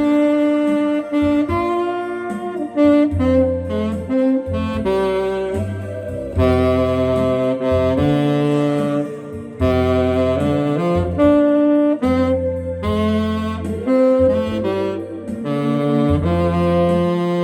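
Saxophone playing a melody over an accompaniment with a bass line.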